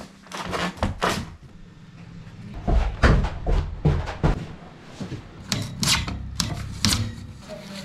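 Plastic pipe being forced into a hole broken through a masonry wall: irregular knocks, bumps and scraping as it catches and shifts in the opening, with a cluster of heavier thuds about three to four seconds in.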